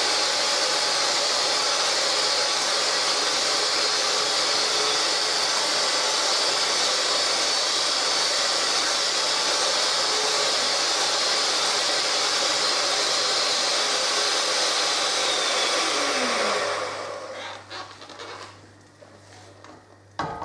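Electric hand mixer running steadily as it beats egg and sugar in a glass bowl set over simmering water. Its motor is switched off about three-quarters of the way through and winds down with a falling whine, followed by a couple of light knocks.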